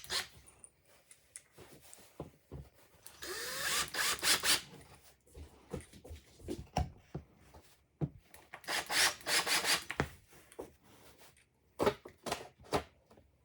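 Cordless screwdriver driving screws into the top panel of a chest of drawers, in three short runs with small clicks and knocks between them.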